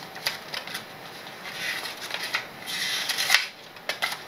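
Oracle cards and paper being handled on a tabletop: scattered light clicks and taps, with longer paper rustles about two and three seconds in.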